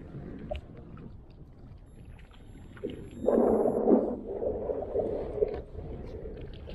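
Wind and water noise around a kayak on the water. About three seconds in, a louder low rubbing sound with a slight hum to it starts suddenly and lasts about two seconds.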